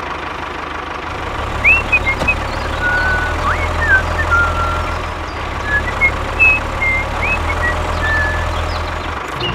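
A vehicle engine running steadily at a low idle-like rumble, a little louder from about a second in and easing off near the end. Birds chirp several times over it.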